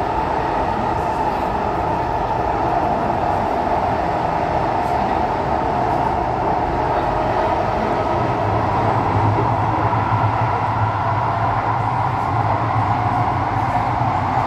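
Running noise heard inside the passenger cabin of a Kawasaki/Nippon Sharyo C751B electric multiple unit moving between stations: a steady rush of wheels and motors, with a low hum that grows louder about eight seconds in.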